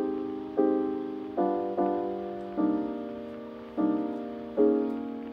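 Background music: piano chords struck one after another, about eight of them, each starting sharply and fading away.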